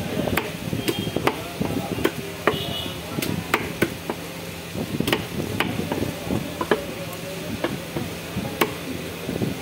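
Steel cleaver chopping fish into steaks on a wooden chopping block: sharp chops at an uneven pace, roughly two a second, over a steady market background hum.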